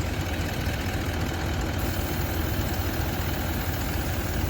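Portable air compressor running steadily with a low hum, pumping air into a vehicle tyre to bring it back up to about 40 psi after airing down for the track.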